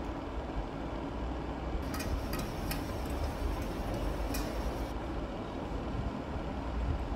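Tap water running into a stainless-steel sink while vegetables are rinsed under the stream. For about three seconds in the middle the splashing gets brighter and hissier, with a few light knocks of vegetables against the steel.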